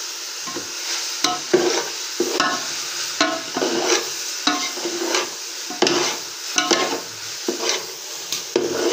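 A spatula stirring and scraping thick grated-carrot halwa around a steel pot, in strokes about once a second, some with a short squeal off the metal. Hot desi ghee sizzles underneath.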